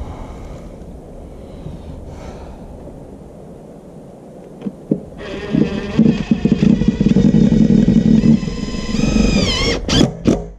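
Cordless DeWalt impact driver driving a screw to fasten a plastic exterior electrical box: its motor whines steadily for about four seconds from midway, then falls in pitch as it winds down, followed by a couple of sharp clicks.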